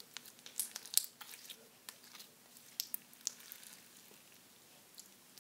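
White slime being stretched and squished by hand, giving off irregular sticky clicks and small pops, thick in the first three seconds and sparser after.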